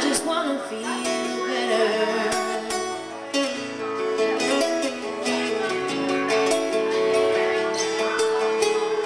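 Two acoustic guitars playing together, strummed in a steady rhythm with sustained chords.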